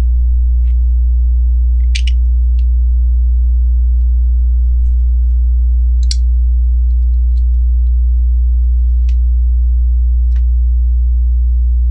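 Loud steady electrical mains hum with its overtones, with a few faint clicks of Lego bricks being handled; the two clearest clicks come about two and six seconds in.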